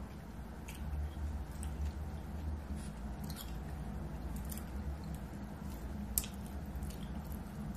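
Eating baked chicken wings: chewing with scattered small wet mouth clicks and smacks, the sharpest about six seconds in, over a steady low hum.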